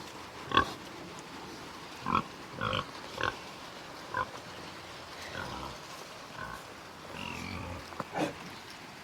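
A pig grunting, about eight short separate grunts spread over several seconds, over a steady hiss of rain.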